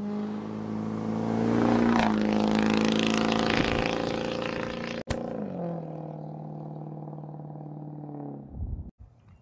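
A truck engine accelerating along a road, its note climbing and growing loud, then dropping in pitch about halfway through and settling to a steadier, lower drone that fades near the end.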